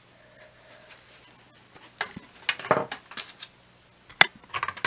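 Light knocks and clinks of small hard objects being handled and set down on a tabletop, a few scattered taps with the sharpest knock about four seconds in.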